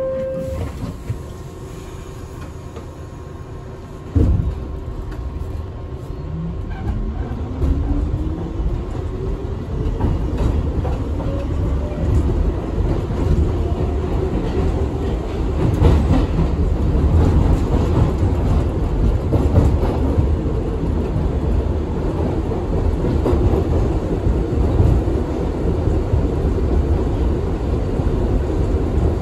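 NYC Subway R62A car pulling out and accelerating: a thud about four seconds in, then a motor whine rising in pitch, and the rumble and clatter of wheels on rails growing louder and settling into a steady run.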